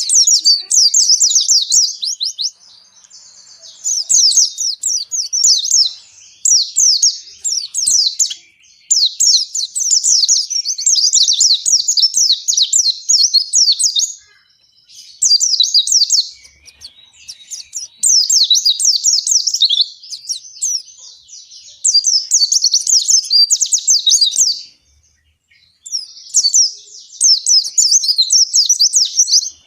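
White-eye (pleci, Zosterops) singing its long, fast, high-pitched chattering song in phrases of a few seconds each with short pauses between: a bird in full, continuous song.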